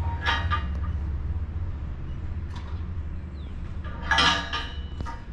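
Renault T High 520 truck running with a steady low drone, heard from inside the cab. There are two short creaks or squeaks, a brief one right at the start and a louder one about four seconds in.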